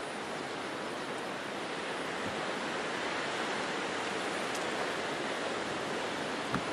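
Approaching bi-level commuter train, cab car leading: a steady rushing noise that slowly grows louder as it nears.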